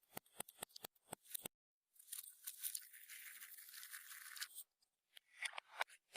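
Clear slime being worked by hand: a quick run of sticky clicks and pops, then a steady hiss lasting a couple of seconds, then more crackling clicks near the end.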